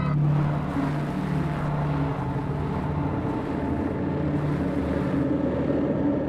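Steady vehicle rumble: engine and road noise with a low hum that fades out about four and a half seconds in.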